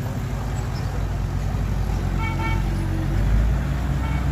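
Heavy truck diesel engine running with a steady low rumble. A short high-pitched tone sounds about two seconds in and again briefly near the end.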